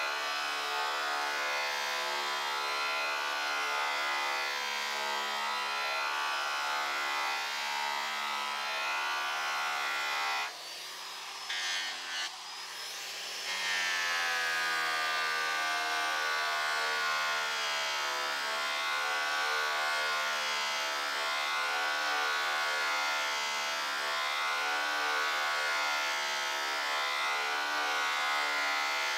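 Corded electric angle polisher with a buffing wheel running steadily against an Airstream trailer's aluminum skin, a constant motor whine with the rub of the wheel on the metal. About ten seconds in the sound drops and the motor's pitch dips for a few seconds, then rises back to full speed.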